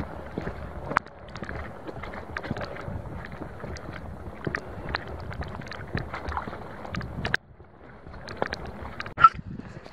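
Wind buffeting a hiker's camera microphone, with many small clicks and taps scattered through it. The wind noise drops out suddenly about seven seconds in, then picks up again, with one sharper click near the end.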